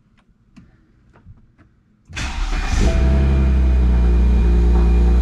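A few faint clicks, then the BMW 135i's N54 inline-six starts about two seconds in and settles within a second into a steady idle. This is the first start after a differential and driveshaft install.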